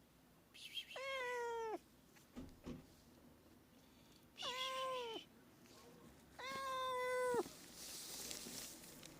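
Domestic cat meowing: three drawn-out meows about a second long each, spaced a couple of seconds apart, each holding its pitch and then dropping at the end. A brief hissy noise follows near the end.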